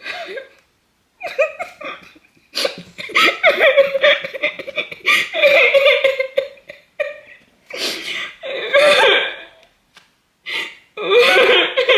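A woman's wordless vocal outbursts: several high, drawn-out cries and squeals broken by gasping breaths and laugh-like bursts, her reaction to the pain of waxing her armpit.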